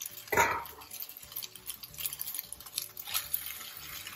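Steel slotted spoon scraping and clicking against a non-stick kadhai as boiled fusilli is stirred into sautéed vegetables, with one louder scrape about half a second in.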